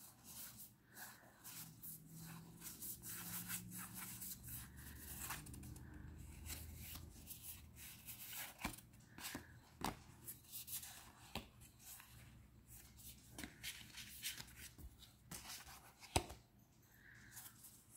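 Tarot cards being leafed through by hand: faint slides and soft clicks of cards against each other, with a sharper snap of a card near the end.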